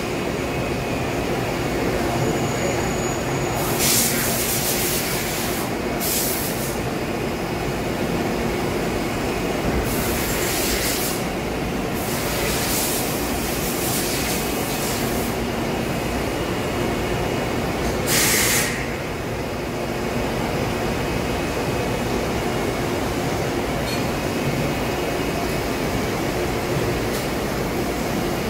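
Steady machinery hum from a powered-up CNC turning center and the shop around it, with a couple of faint steady tones in it. Short hissing bursts break in several times, the loudest about 18 seconds in.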